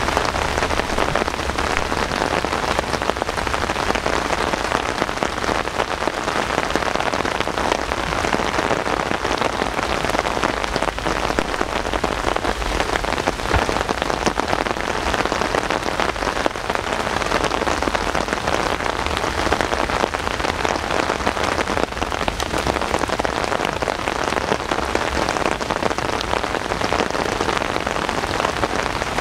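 Steady rain falling close to the microphone: an even hiss of many fine drop ticks that holds unchanged throughout.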